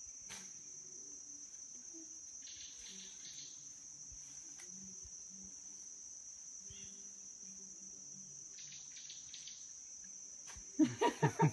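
Insects in forest undergrowth chirring in a steady, high, unbroken tone. Near the end a voice calls out loudly several times.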